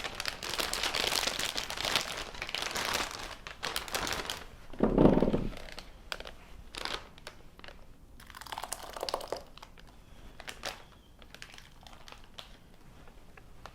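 Plastic zip-top bag crinkling and rustling as it is handled while thick blended marinade is poured in over the chicken thighs, with a short dull thud about five seconds in and fainter rustles and clicks after.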